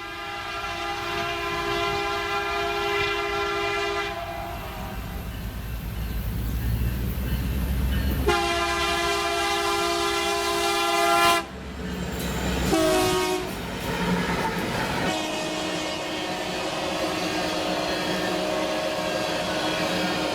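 Locomotive air horn sounding the grade-crossing signal, two long blasts, a short one and a final long one, over the low rumble of a passing train. The last long blast is fainter.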